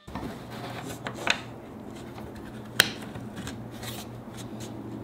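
Hands handling and test-fitting a thin wooden inlay strip in the groove of a wooden workpiece: light rubbing and small wood-on-wood clicks, the sharpest a little under three seconds in, over a low steady hum.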